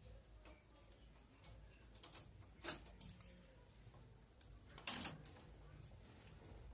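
Faint, irregular clicks of a metal multi-prong transfer tool and latch needles on a domestic knitting machine's needle bed as stitches are moved, the loudest a double click about five seconds in.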